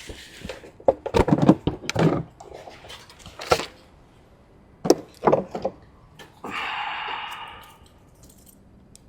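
Handling noises from tools and parts: a string of knocks, clicks and rattles, then a rasping noise lasting about a second, a little past two-thirds of the way through.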